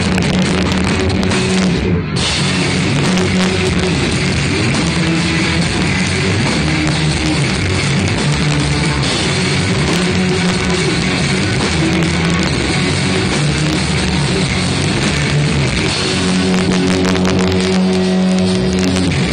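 Live rock band playing loud amplified electric guitar and drums, heard from the audience on a phone, with a brief break in the sound about two seconds in.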